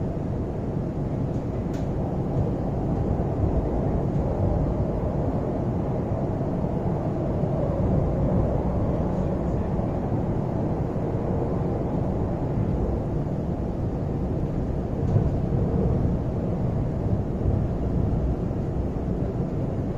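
Cabin running noise of a Class 345 electric multiple-unit train travelling along the line: a steady low rumble with an occasional faint click.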